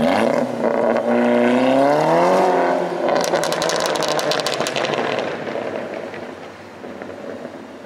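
Car engine revved hard in first gear, its pitch climbing for about two and a half seconds and then dropping as the throttle is released. On the lift-off a rapid string of exhaust pops and crackles follows for about two seconds: the backfiring on overrun that the rev was meant to bring out. The engine note then dies away.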